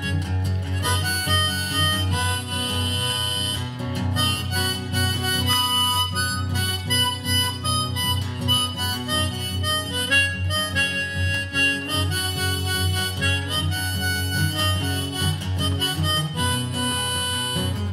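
Harmonica playing a solo over a strummed acoustic guitar, an instrumental break in a song.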